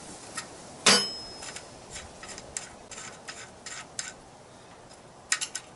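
Metal clinks of an open-end spanner and a bicycle's front axle nut as the nut is loosened: one sharp ringing clink about a second in, a run of light ticks, then three quick clinks near the end.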